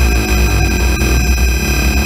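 Theremin played as electronic noise music: shifting, wavering pitched tones over a loud low drone and a steady electrical buzz.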